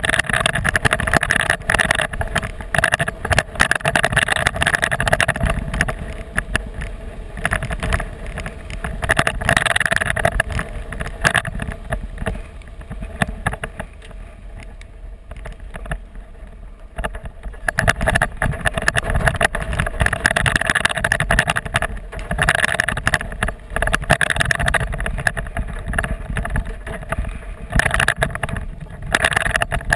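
Toyota Tacoma pickup driving over a gravel and dirt track, heard from a camera mounted low beside the wheel: tyres crunching and crackling over stones under a constant road rumble. It goes quieter for a few seconds midway, then picks up again.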